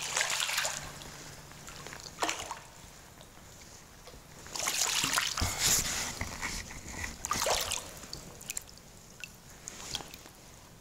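A bass splashing in the water in several short bursts of splashing and sloshing; the longest comes about four and a half seconds in.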